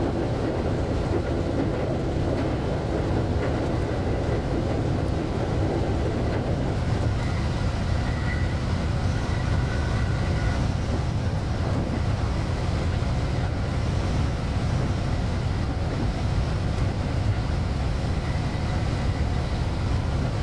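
JR West 223 series electric train running along the line, heard from the cab: a steady rumble of wheels on rail, with a faint whine coming in about the middle.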